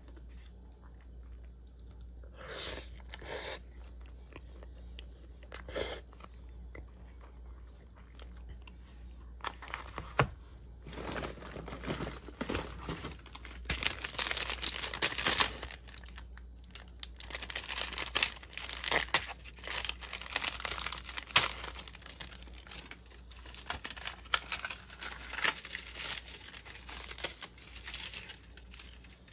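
A plastic pack of dry nori seaweed sheets crinkling as it is handled and opened, then the crisp sheets crackling and tearing as they are crumbled by hand. The crackling starts about eleven seconds in and goes on in dense, irregular bursts of rustle, after a quieter start with a couple of brief sounds.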